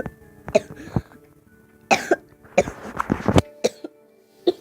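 A person coughing hard and repeatedly, about ten short harsh coughs, some in quick pairs and a longer run in the middle.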